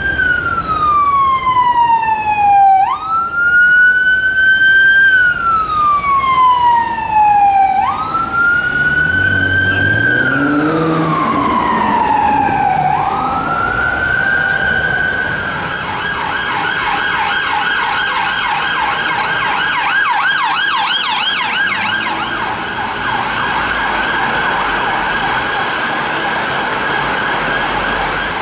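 British police car siren on a wail, rising and falling slowly about every five seconds, then switched to a fast yelp of about four cycles a second from about fifteen seconds in. A vehicle engine revs up beneath it about ten seconds in.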